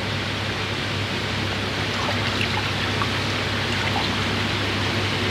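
Steady rush of water with a low hum under it, and a few small splashes and drips as a koi is held and turned by hand in a shallow bowl of water.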